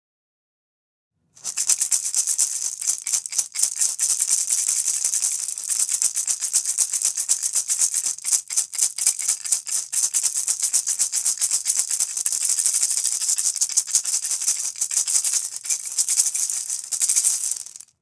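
Maracas shaken rapidly and continuously, a bright, hissing rattle with constant small swells in loudness. It starts about a second and a half in and stops suddenly just before the end.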